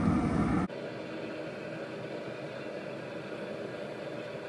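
Traeger pellet grill's fan humming steadily with the lid open. A louder low rumble cuts off suddenly under a second in.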